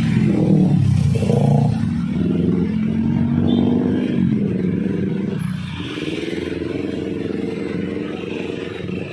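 A bus's air horn sounding in long, held tones that dip in pitch about four seconds in, then hold steady again, with engine noise underneath.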